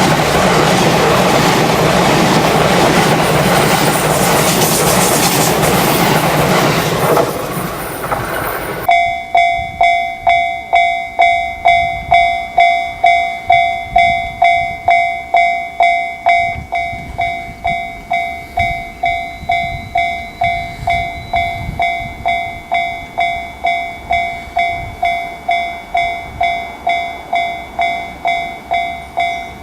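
An E353 series limited express electric train passes close by at speed, a loud rushing rail noise that dies away after about seven seconds. About nine seconds in, a level-crossing warning bell takes over, ringing evenly at about one and a half strikes a second: the crossing is closing for an approaching train.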